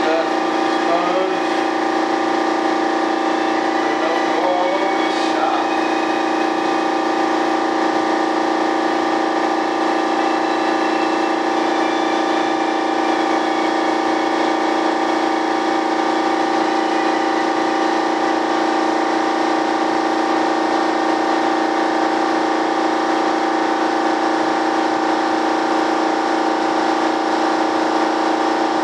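A motor running steadily at constant speed, making an even, unchanging hum.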